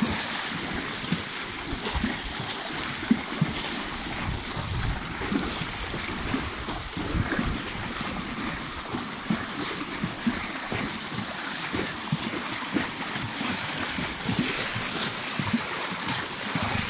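Horses wading through shallow seawater, their legs splashing and sloshing irregularly with each stride.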